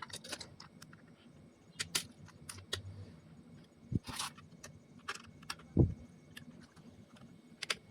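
3D-printed plastic parts clicking and rattling as they are handled and fitted together, with two duller knocks about four and six seconds in.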